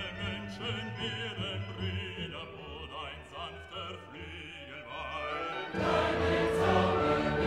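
Background music in a classical, operatic style, with a wavering vibrato melody. About six seconds in it grows fuller and louder.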